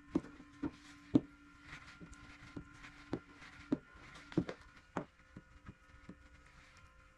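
Scattered light taps and clicks of hands and a plastic squeegee working wet paint protection film onto a car's front fender, about one or two a second and irregular, over a steady low hum.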